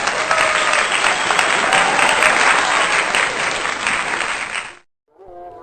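Audience applause, a dense steady clatter of clapping that fades out quickly and stops about a second before the end.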